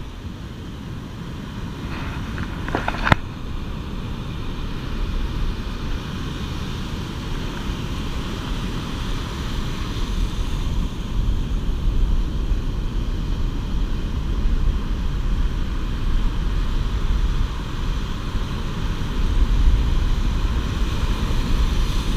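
Surf breaking and washing over the beach, with wind buffeting the microphone in a steady low rumble that grows stronger in the second half. A few sharp clicks come about two to three seconds in.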